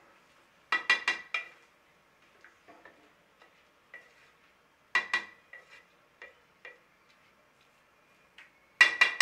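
A spatula knocking against the rim of a metal cooking pot in quick runs of three or four ringing taps, about a second in, around five seconds in, and again near the end. Between the runs there is faint stirring of soaked maash dal in the pot.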